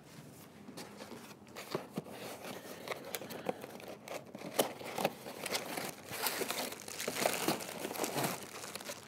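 Cardboard boxes and packing being handled and opened by hand: irregular rustling, crinkling and scraping, busier in the second half.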